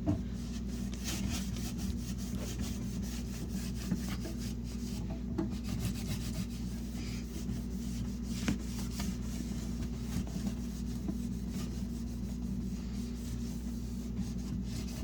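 Norwex cloth scrubbed by hand over a small, filthy fridge part: steady rubbing strokes with an occasional sharper scrape.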